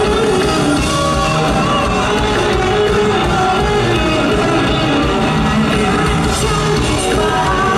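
Live rock band playing electric guitars and drums, with a woman singing lead into a microphone.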